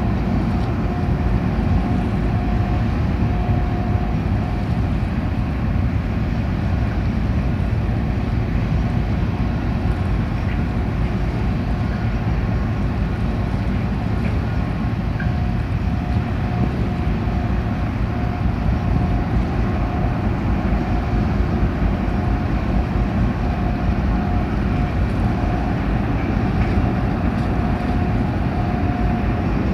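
A ferry's engines run with a steady, deep rumble while the ship turns in the harbour. A faint whining tone fades in and out over it.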